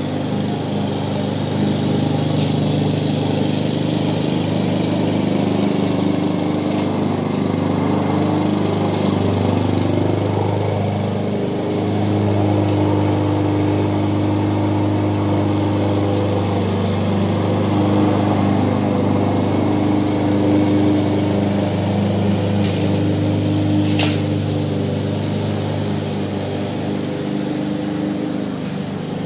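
Petrol lawn mower engine running steadily under load as the mower passes close by, louder in the middle stretch, with a sharp click near the end.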